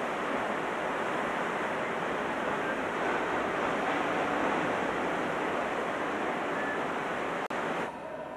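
Steady rushing noise, even and unbroken, like surf. It cuts out abruptly about seven and a half seconds in, and a quieter noise with faint steady tones follows.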